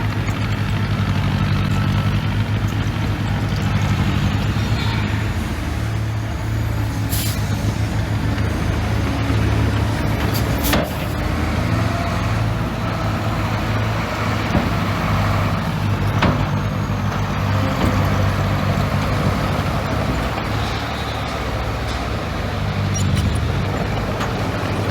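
Heavy diesel earthmoving machinery running steadily under work, with a few short, sharp knocks or hisses.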